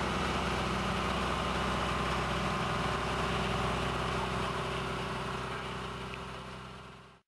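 Motorized outrigger boat's engine running steadily at cruising speed, with the hiss of water and wind over it. The sound fades away near the end and then cuts off.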